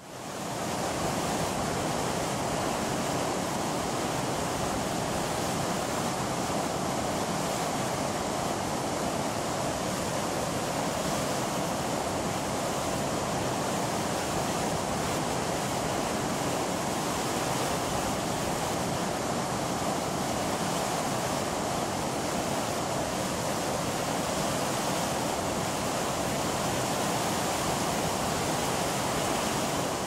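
Steady rush of water from a mountain waterfall and the rocky stream below it, fading in from silence at the very start.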